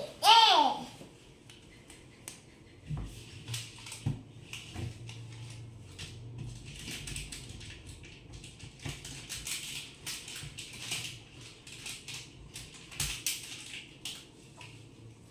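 A toddler's short, high babbling call right at the start, then scattered light taps and bursts of crinkling rustle as stickers are peeled and pressed onto a wardrobe door.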